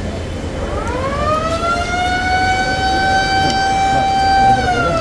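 Motor-driven siren winding up to a steady wail about a second in, holding its pitch, then starting to wind down near the end.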